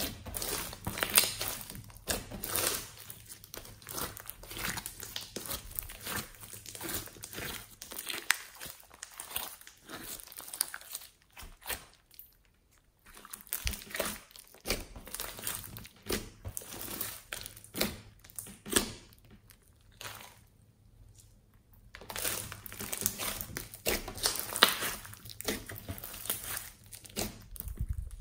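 Pink slime mixed with floam beads being squeezed, poked and stretched by hand: quick runs of sticky crackling and popping clicks, with two brief lulls, about halfway and again shortly before the last third.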